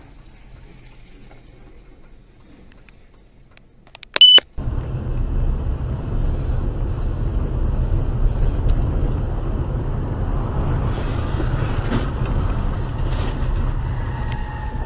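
Faint low rumble, then a short, loud high electronic beep about four seconds in. After it, a loud steady rumble of engine and road noise inside a moving car, picked up by its dashcam.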